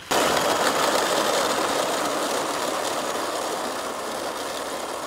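A solar rover's brushless motors and 3D-printed gearboxes driving it through clover: a steady mechanical grinding noise that starts abruptly and eases off slightly.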